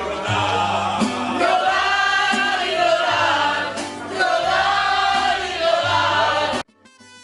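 Music with several voices singing together over a steady bass line; it cuts off abruptly near the end, and a quieter plucked-string passage begins.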